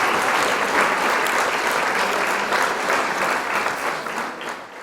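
Audience applauding: a dense, steady clapping that fades away near the end.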